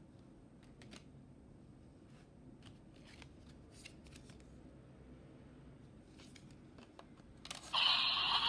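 Faint clicks of a plastic toy being handled. About seven and a half seconds in, the DX Chemy Riser toy transformation device starts playing a loud electronic sound effect.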